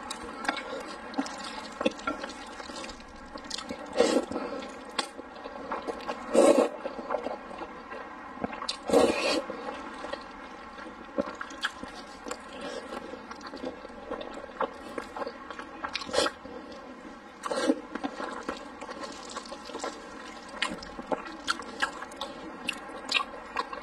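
Close-up eating sounds: wet chewing and biting into braised pork belly and thick noodles, with a scatter of small sharp clicks and several louder wet smacks.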